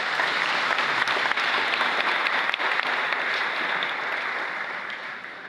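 Audience applauding: a dense patter of many hands clapping that holds steady and dies away near the end.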